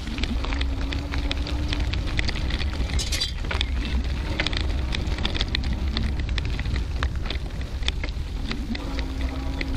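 Bicycle tyres rolling over a gravel road: a continuous crunch with many small stone clicks and pops over a low rumble. A faint low hum comes and goes three times.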